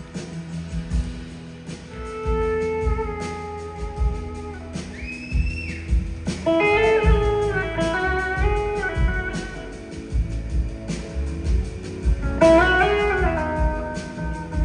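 Live electric blues-rock band playing: a slide guitar carries the melody in notes that glide up into pitch, over drums and bass.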